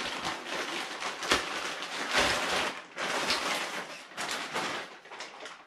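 A thin plastic bag crinkling and rustling as a rifle is pulled out of it, with a couple of sharper knocks about a second and two seconds in; the rustling fades near the end.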